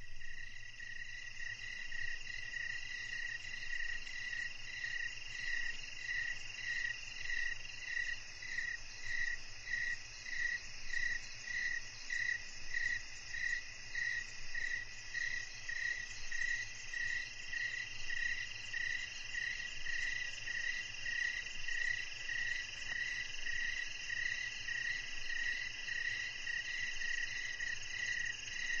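Evening chorus of crickets and other night insects: steady high trilling, with a chirp repeating evenly about twice a second.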